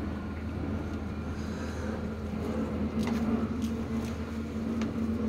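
A steady low mechanical hum, like a motor running, with a few faint light clicks partway through.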